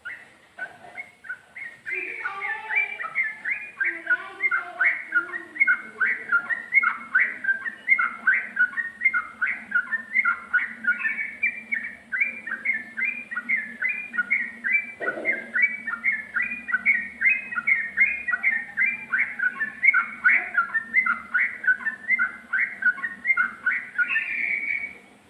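Yellow-vented bulbul (trucukan) singing a long, unbroken 'ropel' run of rapid, clear whistled notes, about three or four a second, over a faint steady hum.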